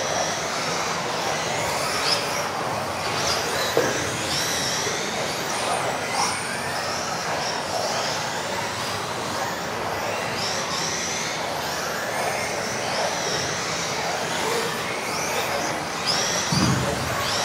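Several electric 1:10 off-road RC buggies racing, their motors whining up and down in overlapping glides as they accelerate and brake, over a steady rush of tyre noise. A low thud comes near the end.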